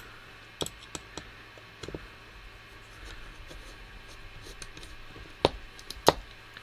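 Small scattered clicks and taps of tools and small parts being handled while an FPV quad is taken apart, with two sharper knocks near the end.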